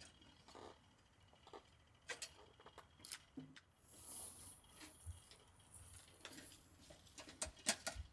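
Quiet ambience broken by scattered faint clicks and ticks, with a few sharper clicks near the end and a brief high hiss about halfway through.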